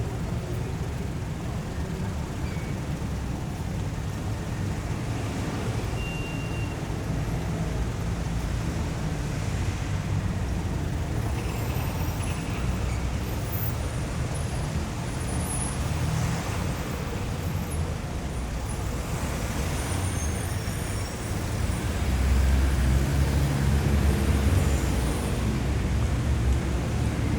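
Dense city street traffic: a continuous mix of engines and tyres on asphalt, with a deep low rumble underneath. The rumble swells louder about three-quarters of the way through.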